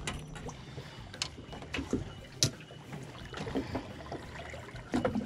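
Water splashing and lapping beside a small boat's hull as a fish is reeled in and lifted out, with scattered sharp clicks and knocks from the baitcasting reel and tackle.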